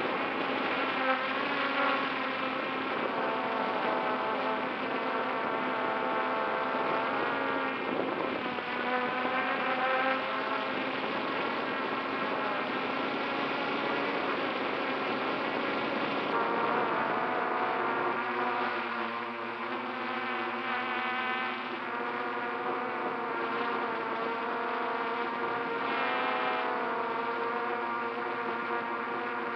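Drone's electric motors and propellers buzzing as heard from its onboard camera, the pitch rising and falling as the throttle changes.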